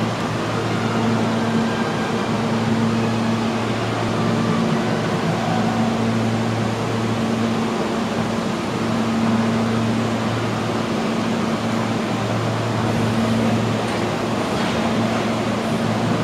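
Steady hum and air-conditioning drone of a subway train standing at the platform, an R160 idling with its doors open, in an underground station.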